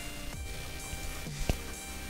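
Background electronic music with a steady beat, and one sharp click about one and a half seconds in.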